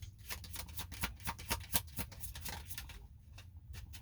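Tarot cards being shuffled and handled: a quick run of crisp paper flicks and taps that thins out after about three seconds.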